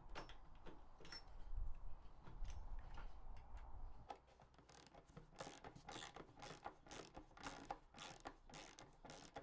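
Socket ratchet clicking in quick runs as bolts are tightened, faint and mostly in the second half.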